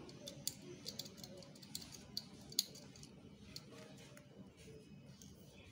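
Sharp, irregular clicks and crinkles of a small plastic sachet pinched and flicked between fingers to shake out powder, densest in the first three seconds and sparser after.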